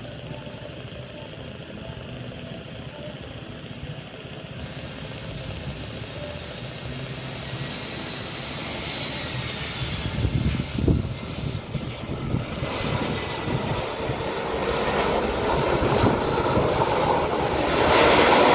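Jet airliner's engines growing steadily louder as the plane approaches, with gusts of strong wind buffeting the microphone about ten seconds in.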